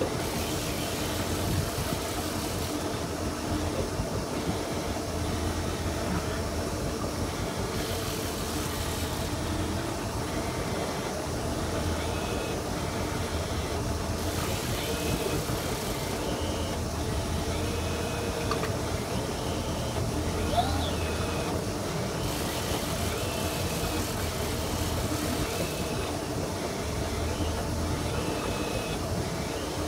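Tiara 2700 Open's engine running steadily at trolling speed, a constant low hum, with a hiss that swells and fades every few seconds.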